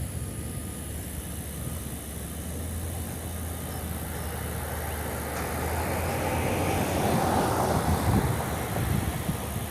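A road vehicle driving past, its noise swelling over a few seconds and then fading, over a steady low hum.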